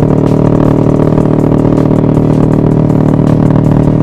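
Motorcycle engine running at a steady speed while riding, its pitch holding even.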